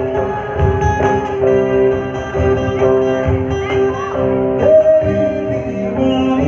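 Live band playing: strummed acoustic and electric guitars over a cajón beat.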